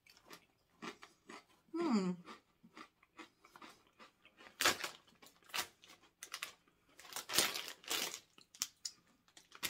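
Crisp, irregular crunching of kettle-cooked, hickory-smoked potato stick chips being bitten and chewed, heaviest in the second half.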